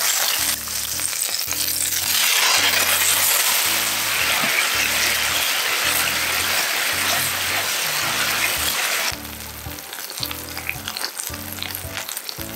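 Eggplant slices sizzling as they fry in a pan. The sizzle swells about two seconds in as the sake, soy sauce and sugar sauce goes in, then drops off sharply after about nine seconds. Background music with a steady low beat runs underneath.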